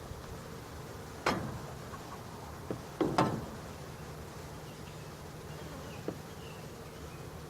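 Honey bees humming steadily around an open hive, with two sharp knocks, about a second in and about three seconds in, and a few faint clicks.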